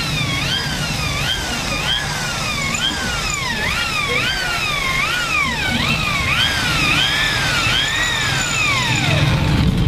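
Electric hand drill whining as it bores into a plastic handlebar switch housing. Its motor pitch surges up and down over and over, about one to two times a second, as the trigger is squeezed and eased. Near the end it winds down in one long falling whine.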